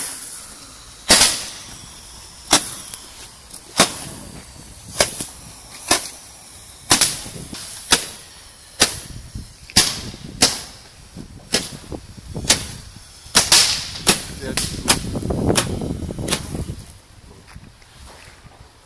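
Multi-shot firework firing its shots one after another: a sharp bang roughly every second, coming faster after about twelve seconds, then a longer noisy stretch that dies away.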